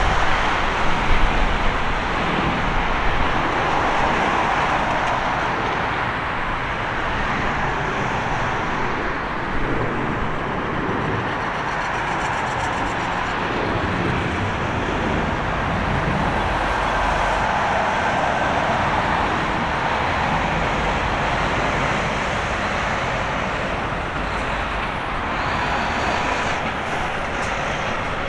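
Steady roar of an Airbus A330-300's Rolls-Royce Trent 700 jet engines as the airliner approaches and lands, swelling and easing slowly.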